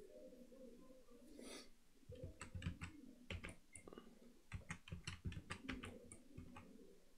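Computer keyboard keys and mouse buttons clicking while working at a desk: scattered light taps that come in a cluster about two to three and a half seconds in and again from about four and a half seconds on.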